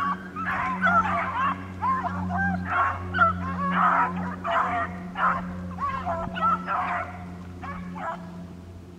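A pack of beagles baying and yelping on a rabbit's trail, many voices overlapping in bouts, growing fainter near the end, over a steady low hum.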